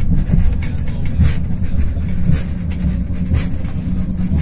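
Running noise of the Afrosiyob high-speed electric train heard inside the passenger carriage: a steady low rumble with a hiss that swells briefly about once a second.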